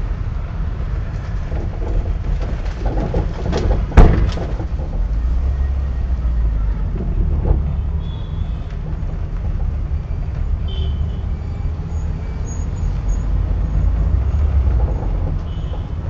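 Car engine and road noise heard from inside the cabin of a car driving slowly through town traffic: a steady low rumble, with one sharp knock about four seconds in.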